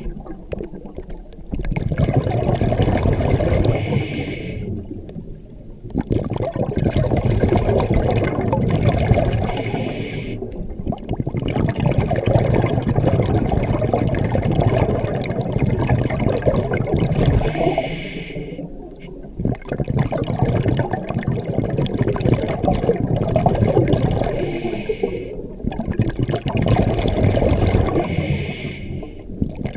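Scuba diver breathing through a regulator underwater: a short hiss on each inhale, then a long bubbling rush of exhaled air, about five breaths, roughly one every six seconds.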